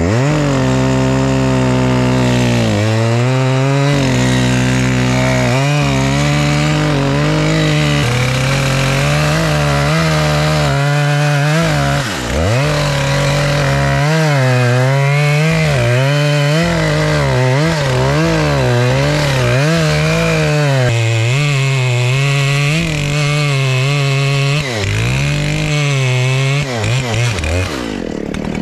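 Gas chainsaw running at full throttle while cutting into the base of a large standing tree, its engine pitch wavering as it loads down in the cut. The revs dip briefly about twelve seconds in and the throttle is let off near the end.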